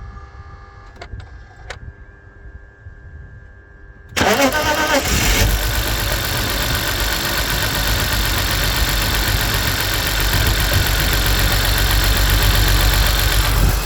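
BMW Z3 2.2i's inline-six, switched off, with a couple of faint clicks, is cranked by the starter about four seconds in and catches after about a second, then runs steadily. The owner reports a misfire on this engine at cold start.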